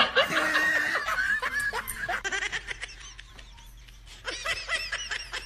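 A person laughing in snickering bursts, loudest at first, dying down in the middle and picking up again near the end.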